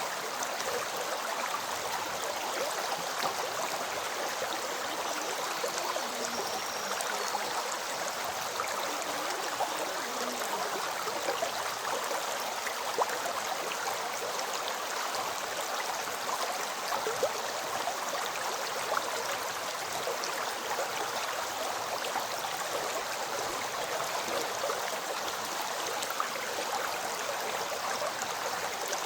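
A flowing river: a steady rush of water with many small splashes and drips through it.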